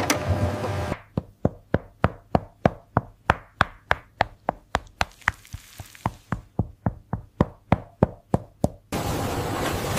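A rapid, even series of sharp knocks, about three or four a second. They begin about a second in and stop near the end, with a steady mechanical whirring before and after them.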